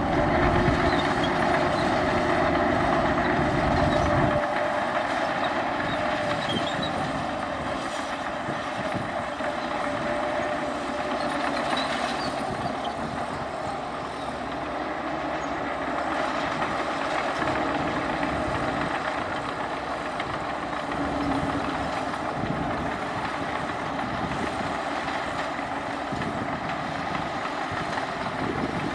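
Heavy earthmoving machinery engine running steadily, with a deep low rumble that drops away about four seconds in.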